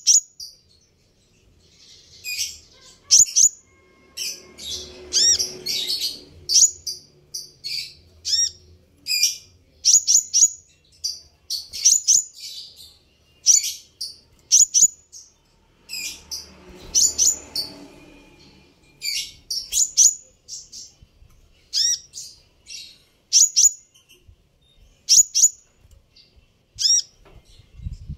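Male Van Hasselt's sunbird (kolibri ninja) calling: sharp, high chirps repeated about every second, often in quick pairs.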